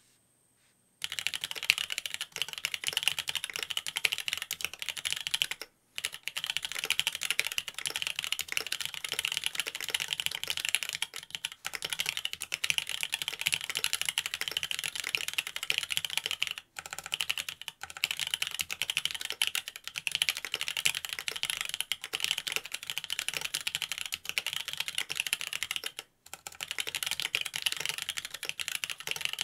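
Fast, continuous typing on a Mont Cervin custom mechanical keyboard with linear Cherry Wyse Black switches (Hyperglide Black bottom housings) on a carbon fiber plate: a dense stream of key clicks that starts about a second in, broken by a few short pauses. The stems are unlubed and the case has no dampening foam.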